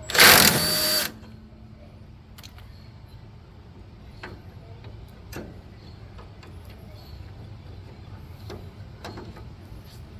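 A power tool runs in one loud burst of about a second, spinning off the bolt of an idler pulley, followed by scattered light clicks and knocks as the parts are handled.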